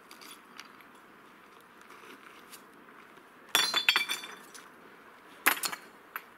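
Hand-thrown stones landing on a heap of broken stone: a loud stone-on-stone clatter about three and a half seconds in, and a second, shorter clatter about two seconds later, with faint clinks of stones being picked up before them.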